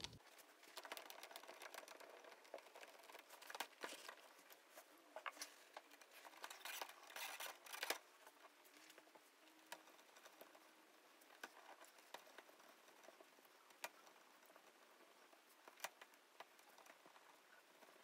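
Faint rustling and small clicks of hands taking a wheel off a Redcat Gen8 V2 RC crawler and handling its hub parts. The clicks are busiest in the first eight seconds, then come only now and then.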